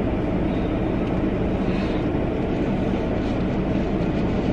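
Steady low rumble and hiss inside a car's cabin with the engine running, with faint rustling of something being handled now and then.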